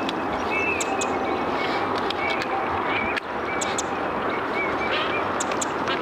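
Small birds calling: short repeated chirps and sharp, very high ticking notes over a steady background hiss.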